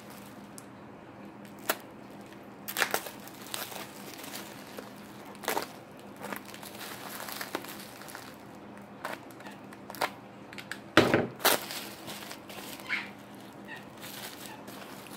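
Bubble wrap being pulled open and crinkled by hand, in irregular crackles with the loudest pair about eleven seconds in.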